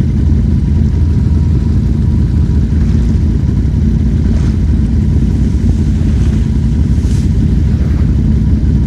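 ATV engine running steadily at low speed, a dense low rumble, with a few faint brief swishes over it.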